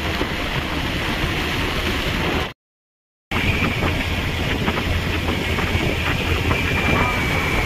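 Steady rush of wind over the microphone with road noise from a moving vehicle. The sound drops to dead silence for under a second about two and a half seconds in, then resumes.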